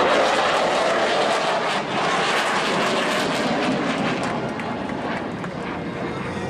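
Airplane engine noise from an aircraft passing by, a dense rushing sound that slowly fades.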